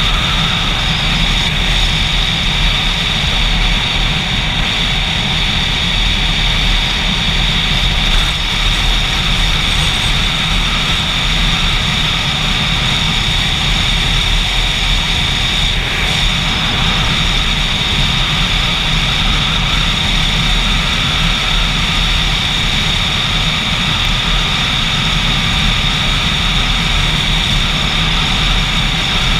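Motorcycle running steadily under way, a constant engine drone with steady rushing noise, unchanging in level.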